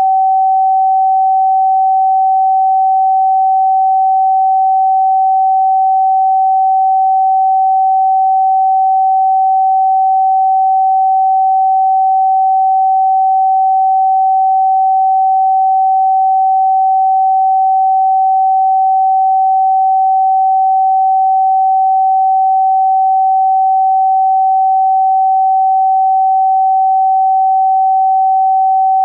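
A pure sine tone held perfectly steady at about 764 Hz: the note G (Sol) in a scale tuned to A = 432 Hz.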